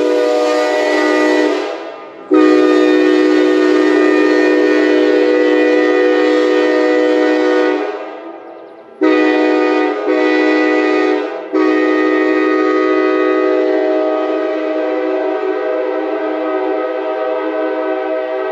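Nathan K5LA big bore five-chime train horn blowing a steady chord in several long blasts, broken by short gaps about two, eight and eleven seconds in. The number 5 bell sounds sharp and dominant in the chord without overpowering it.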